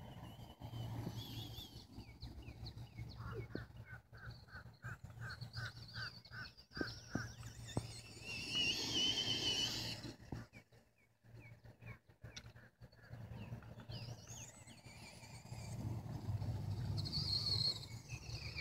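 Birds chirping and calling, including a run of about ten evenly spaced notes at roughly two a second. Over this, the Traxxas Rustler VXL's brushless electric motor whines as it speeds up and slows down, loudest a little past the middle and again near the end.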